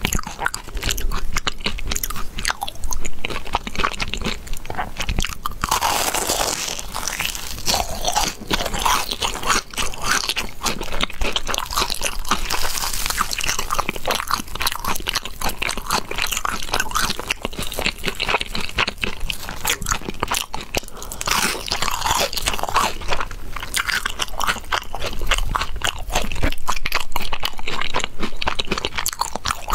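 Crunching and chewing of crisp fried breaded balls with a stretchy white filling, dense crackly bites throughout, heaviest in two stretches near the middle and toward the end.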